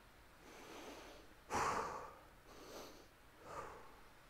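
A man breathing hard with exertion during resistance-band reps: about four short, sharp breaths, the loudest about one and a half seconds in.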